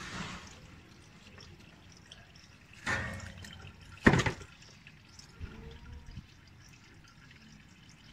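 Engine oil dripping and trickling from the oil filter mount as the spin-on oil filter is removed, with two sharp knocks about three and four seconds in, the second the loudest.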